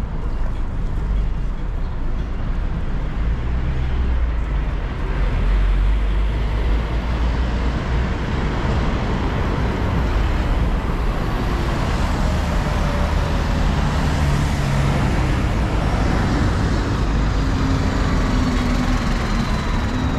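City street traffic: a steady rumble of passing vehicles, with bus and minibus engines running close by and growing more prominent in the second half.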